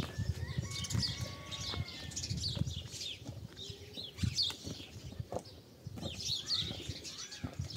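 Small birds chirping over and over in quick, short calls, with footsteps on a stony gravel path.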